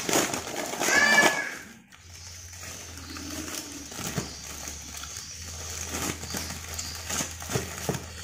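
Plastic bag crinkling and rustling as food is handled and taken out of it, with scattered sharp clicks. About a second in comes a short, loud, high-pitched call that rises and falls.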